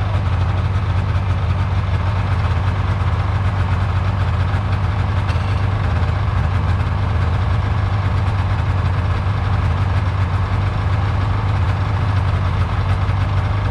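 Snowmobile engines idling with a steady low hum, close to the microphone and unchanging throughout.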